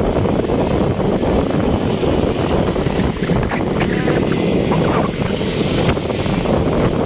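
Steady wind buffeting the microphone of a moving motorcycle, with low road and vehicle noise underneath.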